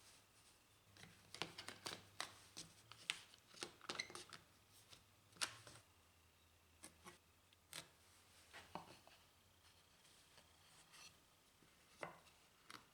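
Faint, irregular light taps and clicks of jig parts being handled, about a dozen in all, most of them in the first half, over a faint low hum.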